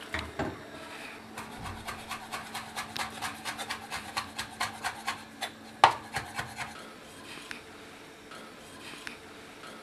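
Kitchen knife chopping fresh cilantro on a wooden cutting board in quick, even strokes, with one louder knock about six seconds in; the chopping stops about a second later.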